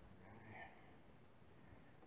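Near silence, with a faint short sound about half a second in.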